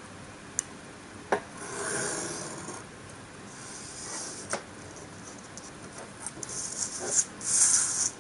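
Hobby knife blade drawn lightly along a steel ruler, scoring paper, in two scraping strokes with a few sharp clicks as the knife and ruler are set down. Near the end, a loud rustle as the paper sheet is slid around on the cutting mat.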